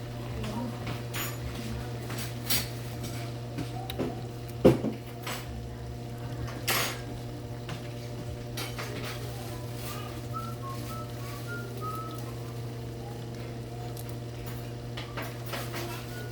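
Metal utensils clinking and knocking against pots and pans, a few separate strikes with the loudest about four and a half seconds in, over a steady low hum.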